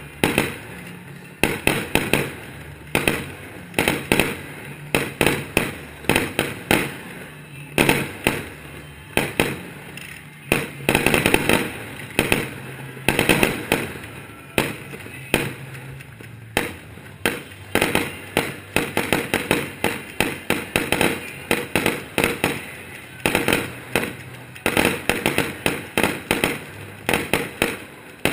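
Aerial fireworks shells bursting overhead one after another, a continuous run of sharp bangs in quick clusters with crackling in between.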